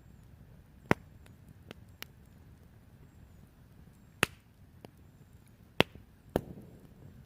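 About seven sharp, separate knocks at uneven intervals, four of them loud, over a faint steady background hiss.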